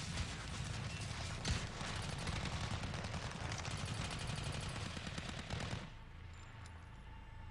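Many firearms firing at once: a continuous, rapid volley of automatic gunfire that stops abruptly about six seconds in.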